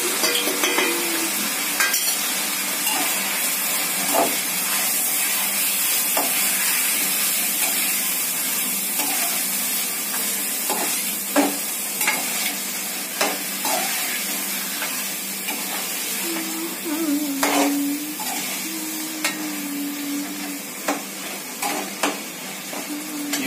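Chicken and ground spices frying in a steel kadhai on a gas burner, sizzling steadily, while a metal ladle stirs them, scraping and clinking against the pan now and then.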